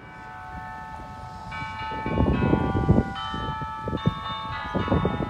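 Bells ringing a tune, each struck note ringing on and overlapping the next, with new notes joining about every second. Irregular bursts of low rumble come in partway through.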